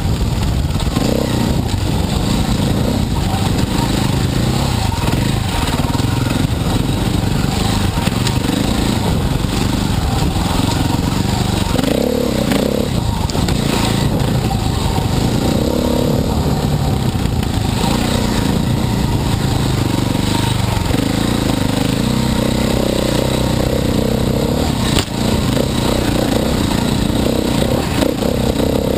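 Dirt bike engine riding under load, its pitch rising and falling constantly as the throttle is worked on a trail, heard from the rider's helmet.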